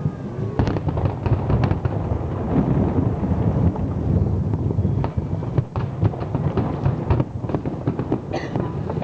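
Fireworks display: a rapid, irregular string of sharp shell bursts and bangs over a continuous low rumble from the barrage.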